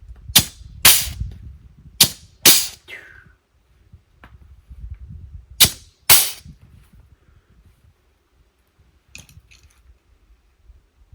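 Six sharp knocks in three pairs, the two knocks of each pair about half a second apart, struck on parts during work on a mini excavator's hydraulic cylinder. Two faint clicks come near the end.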